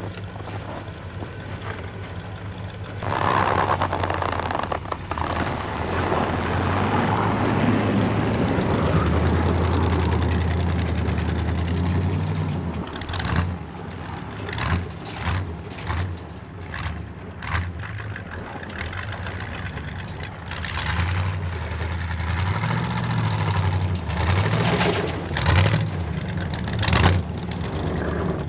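Older dual-rear-wheel 4x4 pickup truck's engine revving as it spins its rear wheels through deep snow to push out a parking spot, with the hiss of snow spraying from the tyres. The engine pitch rises and falls repeatedly in the second half as the driver works the throttle.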